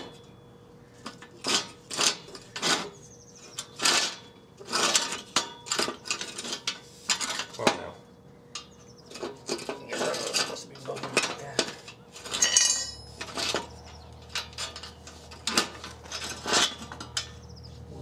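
Steel angle-iron bed-frame rails and brackets clanking and clinking as they are handled and fitted together: irregular metal knocks, each with a short ring, and a brief rattle a little past halfway.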